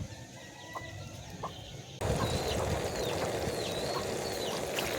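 Chickens clucking in short repeated calls; about two seconds in the sound jumps abruptly to a louder, noisier background with high chirps over it.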